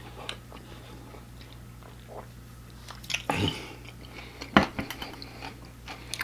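Close-miked mouth sounds of a person drinking from a water bottle and chewing: scattered wet clicks and smacks, a louder mouth noise about three seconds in and a sharp click about a second later, over a steady low hum.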